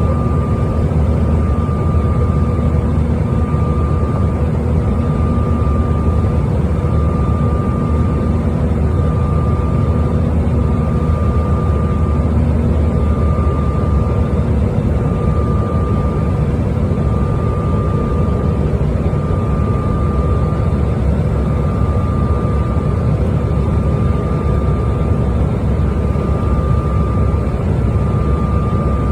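Steady drone of an airliner cabin in flight: engine and airflow noise with a deep hum, and a thin high tone that breaks off briefly every second or two.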